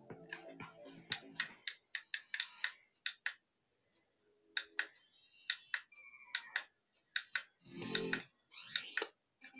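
Handheld karaoke microphone being handled and its buttons pressed: a long run of sharp clicks and taps, with music from its built-in speaker fading out about a second and a half in and a few short tones later on.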